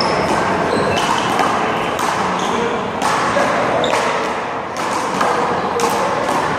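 One-wall handball rally: a small rubber handball struck by hand and hitting the wall and pavement, sharp smacks about once a second over steady background noise.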